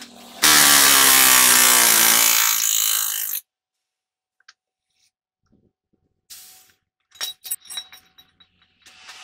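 An air-powered workshop machine runs with a loud hiss, its pitch falling as it slows, and cuts off suddenly after about three seconds. A few sharp metallic clicks and knocks follow, with a softer hiss starting near the end.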